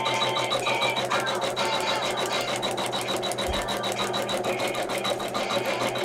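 Computerized embroidery machine stitching out a design: a rapid, steady run of needle strokes.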